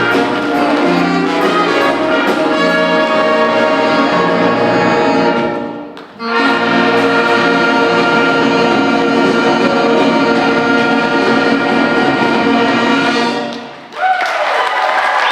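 High school jazz big band with brass in front, playing loud ensemble jazz. The band breaks off suddenly about six seconds in, comes back in, and stops about thirteen and a half seconds in. Audience applause follows near the end.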